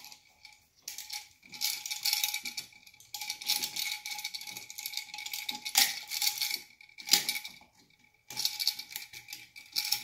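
Handling noise from a wall light switch and its wires being worked at the open electrical box: irregular scraping, rattling and clicking of metal and plastic, with two sharper clicks a little past the middle.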